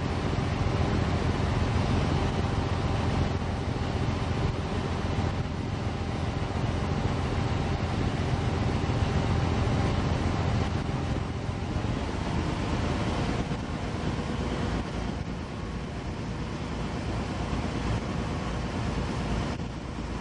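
River cruise boat under way: a steady low engine rumble with a few faint steady hum tones, mixed with wind on the microphone, easing slightly about two-thirds of the way through.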